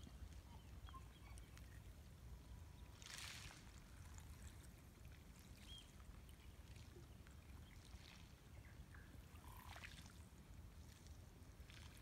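Near silence: small ripples lapping softly at the edge of a shallow bay over shells and shingle, a soft swish every few seconds, the clearest about three seconds in, over a low steady rumble.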